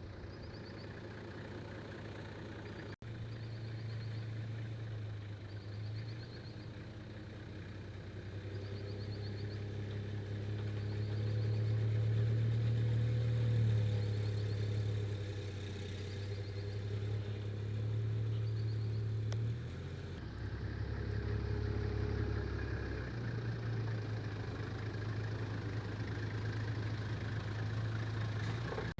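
Mazda BT-50 ute's engine running steadily as it drives along, its low drone rising and easing a few times with changing load. The engine is running again after a no-start and a dashboard engine light that the owners put down to a flat battery or an alternator not charging.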